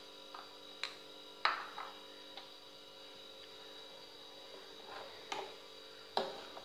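Steel spoon clinking against the side of an aluminium saucepan while stirring powder into hot milk: a few sharp clinks, two about a second in and two more near the end, over a faint steady hum.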